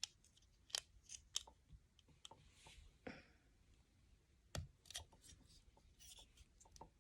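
Scattered small clicks and taps of plastic Lego pieces being handled and pressed into place, with a soft rustle about three seconds in.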